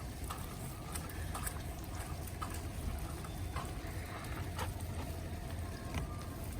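Wet, snowy street ambience: water trickling and dripping, with scattered irregular light taps over a steady low rumble.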